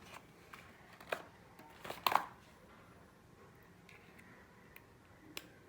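Huawei tablet's SIM tray being ejected with the ejector pin and pulled out: a few small sharp clicks and taps, the loudest about two seconds in.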